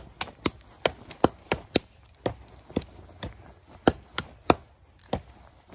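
Work Tuff Gear Puzon Wilderness Bowie 7, a 7-inch SK85 steel Bowie knife, stabbed again and again into a tree trunk: a quick run of sharp knocks, about three a second, with a brief pause about two seconds in.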